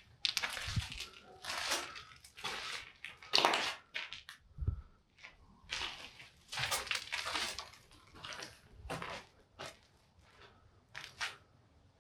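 Footsteps crunching over rubble and debris on a ruined floor: irregular gritty crunches, some with a dull thud underfoot.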